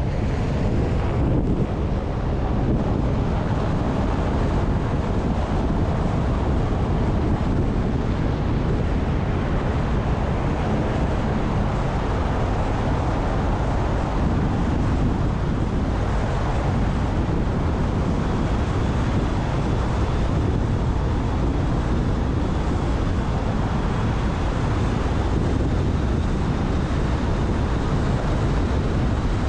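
Steady road and wind noise from a moving car, with wind rumbling on the microphone and a faint thin whine joining about two-thirds of the way in.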